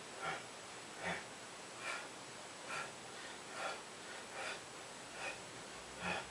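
A person breathing out sharply in a steady rhythm, about one breath every 0.8 seconds, in time with repeated abdominal crunches.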